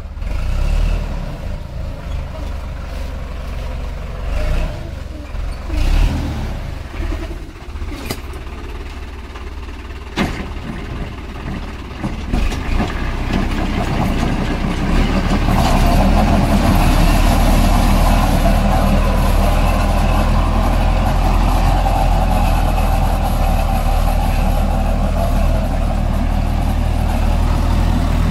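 Sonalika 750 DI RX tractor's diesel engine running, with a few sharp knocks in the first half. About halfway through it picks up to a louder, steady run.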